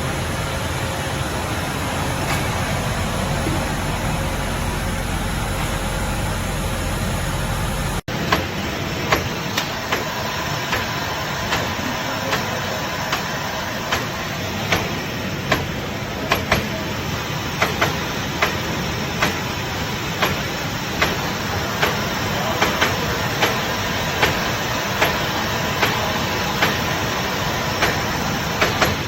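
Dog-treat production machinery running with a steady mechanical din. After an abrupt cut about eight seconds in, sharp clicks or knocks repeat about once or twice a second over the running noise.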